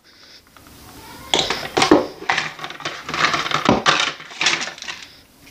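Plastic pill bottles, tubes and small cardboard boxes clattering and knocking on a countertop as they are pushed and knocked over with a metal reacher-grabber. The run of sharp knocks starts about a second in and goes on until near the end.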